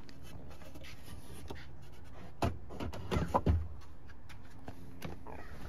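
Wooden 2x4 frame being handled and set in place, knocking and bumping against the minivan's interior: a cluster of dull knocks about two and a half to three and a half seconds in, over a low steady hum.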